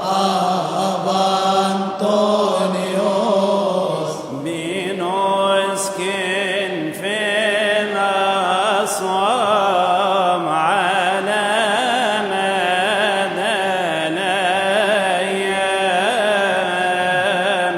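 A man's solo voice chanting an Arabic Coptic madih (praise hymn), drawing out long melismatic notes whose pitch wavers and glides.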